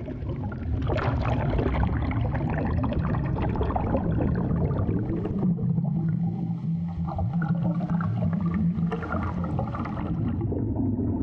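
Underwater ambience: a steady low rumble with bubbling and gurgling water and a dense crackle.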